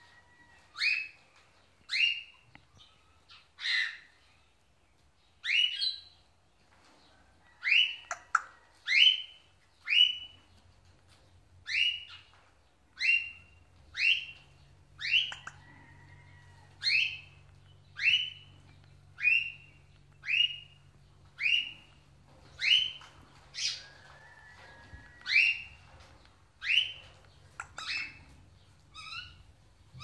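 Pet parrots calling: short, sharp squawks repeated over and over, about one every second or so.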